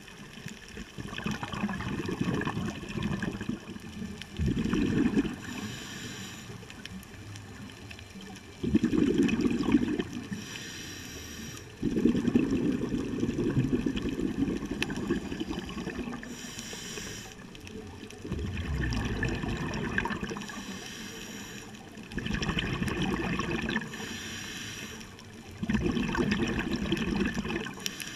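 Scuba diver breathing through a regulator, heard underwater: a short hiss on each inhale, alternating with a gurgling rush of exhaust bubbles on each exhale, repeating over several breaths.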